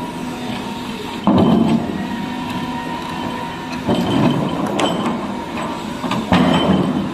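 Cat hydraulic excavator's diesel engine running under hydraulic load, with a steady whine, rising in load about a second in, near four seconds and again near six seconds as the arm and bucket move. A few sharp metal clanks near the end as the bucket works the stones.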